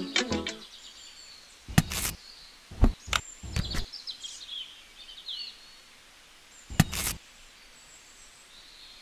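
A few sharp clicks and knocks from handling small wires and plastic parts, likely as a lead's plug-in connector is fitted to a miniature switch box, with faint bird chirps in the background. Music fades out at the start.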